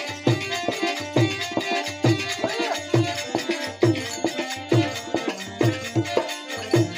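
Instrumental interlude of a folk bhajan: a harmonium playing the melody over a steady dholak beat, with strong low drum strokes about once a second and lighter strokes between.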